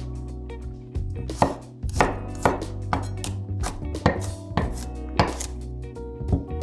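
Chef's knife chopping garlic cloves on a wooden cutting board: a series of sharp knife strikes, roughly two a second.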